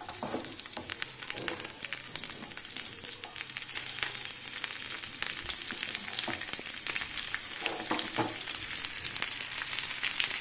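Oil sizzling and crackling in a frying pan as cashews, almonds, onion chunks and green chillies fry, growing slowly louder.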